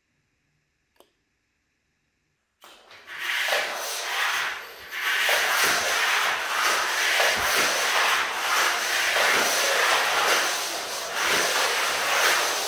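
Simple electromagnetic trains (batteries with neodymium magnets on the ends) running through bare wire-coil tracks, a rubbing hiss that swells and fades as they pass. It starts about two and a half seconds in, after near silence broken by a single click.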